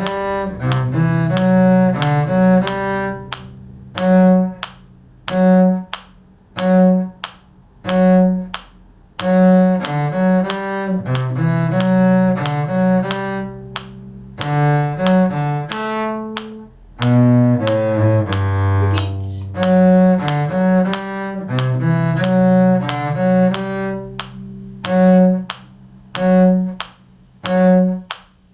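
Low-pitched bowed strings in the cello range playing a simple tune from a beginner's string book. Short low notes repeat as a steady pulse about every second and a bit, with held lower notes and a higher moving line over them.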